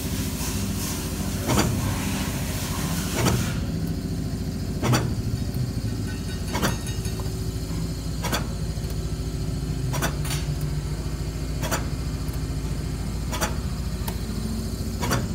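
Automated rotary knife machine running with a steady low hum, its knife striking with a sharp click at an even beat of about one stroke every 1.7 seconds. A high hiss cuts off about three and a half seconds in.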